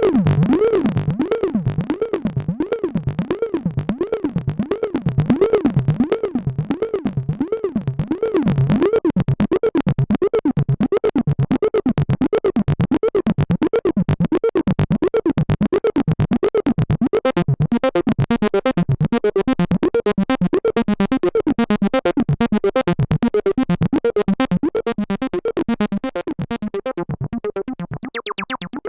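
Behringer System 100 modular analog synthesizer playing a fast, repeating acid bass line, its resonant filter sweeping up and down. About halfway in the sound turns brighter, and near the end the top end closes off.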